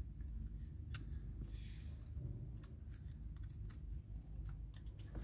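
Faint, scattered light clicks and scrapes of a small metal pick working inside the top of a diesel injector, prying at a tiny retaining washer, over a low steady hum.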